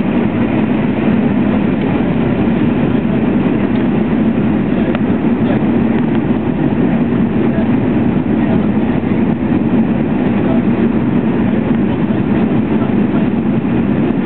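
Steady jet airliner cabin noise in cruise flight: the continuous drone of the engines and rushing air, with a low hum at its core.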